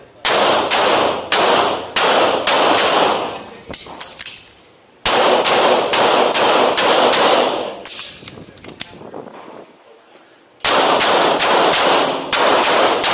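Three strings of rapid pistol shots, each crack ringing on in the echo of an indoor range, with short breaks between the strings about a third and two-thirds of the way through.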